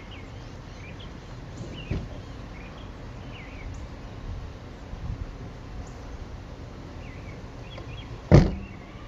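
Small birds chirping again and again over a low steady background noise, with a soft knock about two seconds in and a loud, sharp thump near the end.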